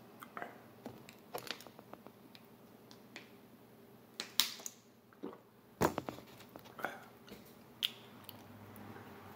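Scattered clicks and crackles of a plastic water bottle being handled and drunk from, with sharper knocks about four and six seconds in.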